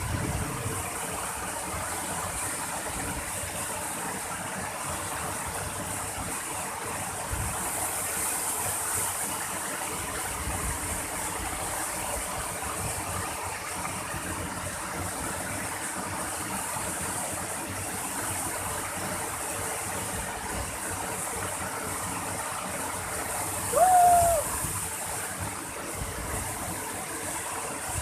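Waterfall rushing steadily, a constant hiss-like roar of falling water. Near the end a brief pitched call stands out for under a second.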